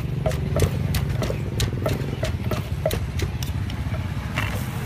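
Steady low engine hum with sharp, ringing knocks about three times a second over it; the knocks stop a little past three seconds in.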